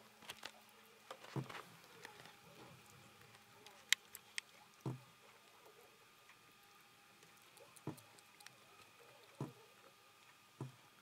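Cat eating from a metal bowl: quiet sounds of eating, with a couple of sharp clicks against the bowl about four seconds in and several soft knocks spread through.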